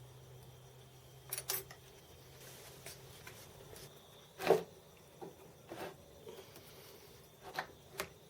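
Metal parts and tools clinking and knocking on a workbench: a pair of quick clicks, then one louder knock and a few lighter ones. A low steady hum fades out in the first few seconds.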